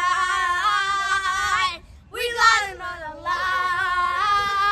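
A child's voice singing without accompaniment, holding a long wavering note, then after a short breath a second held note.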